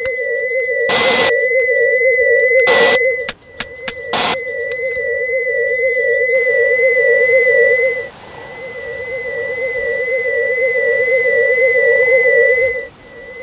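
Warbling, wavering theremin-style electronic tone, the classic flying-saucer sound effect, swelling in loudness and cutting out briefly about three seconds in and again near eight seconds. Two short bursts of static-like noise come in the first three seconds, followed by a few sharp clicks.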